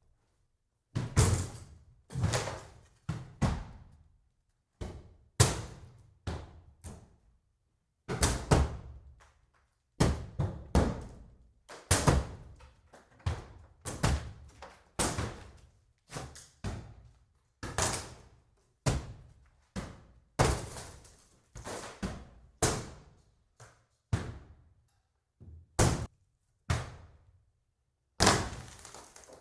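Axe blows striking and breaking up the wooden walls of a cabin: a long run of heavy, irregular knocks, roughly one or two a second, some coming in quick pairs, with a couple of short pauses.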